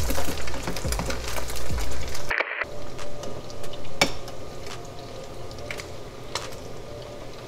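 Breaded crappie fillets deep-frying in a skillet of hot oil: a dense bubbling sizzle and crackle. Metal tongs click against the pan now and then as the fillets are turned. About two seconds in the sound drops out for a moment and returns quieter and steadier.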